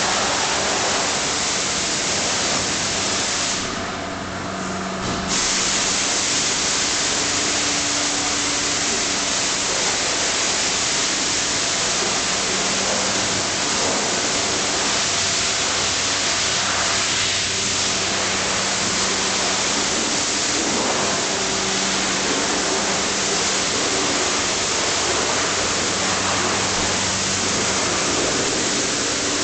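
Pneumatic spray gun hissing steadily, easing off for a moment about four seconds in, with a faint steady hum underneath.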